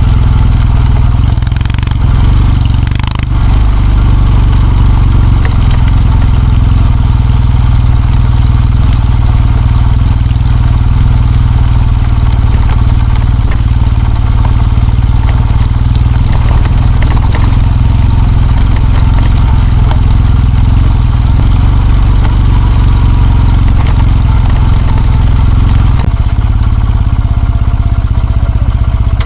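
Kawasaki W650's air-cooled parallel-twin engine running steadily, a loud continuous low rumble with only a brief dip about three seconds in.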